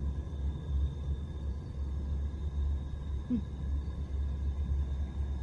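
Sleeping cat snoring: low rumbling breaths.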